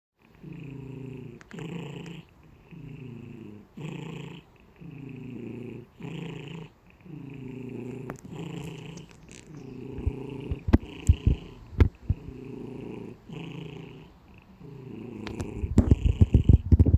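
Cat snoring in its sleep: a rumbling rasp on each breath in and out, roughly one breath every two seconds. A few sharp knocks come past the middle, and loud rustling and knocking build up near the end.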